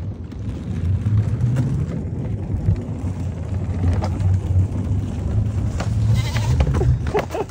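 Wakeboard boat's engine opening up about a second in and running steadily under load as it pulls a wakeboarder up out of the water.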